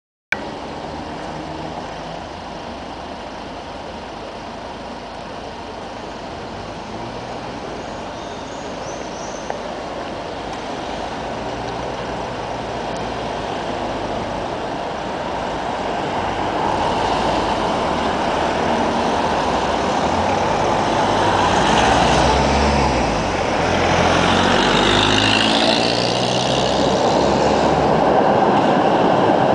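Trams on a city street: a tram pulls away from the stop, and the street noise grows steadily louder through the second half, with rising and falling motor whines, as another tram draws near.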